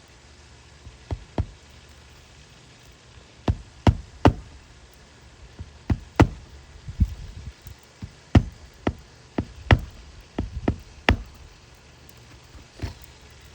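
A series of sharp knocks at uneven intervals, about fifteen in all, some coming in quick pairs, over a steady low hiss.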